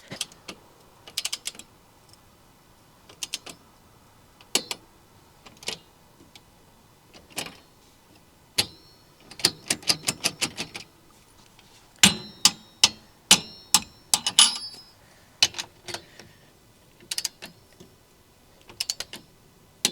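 Hand wrenches clicking and clinking against steel hitch bolts and nuts as they are tightened: irregular sharp clicks in short quick runs, some with a brief metallic ring, busiest in the middle.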